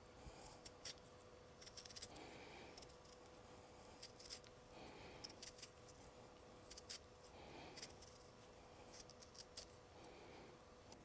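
Vegetable peeler paring a raw potato into long thin strips: faint, irregular short scraping cuts, coming in little runs every second or two, over a faint steady hum.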